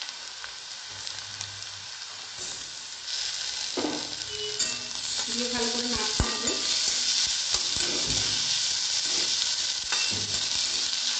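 Chopped onions, ginger and garlic sizzling in hot mustard oil in a metal kadai, with a spatula scraping and stirring them round the pan. The sizzle gets louder about three seconds in.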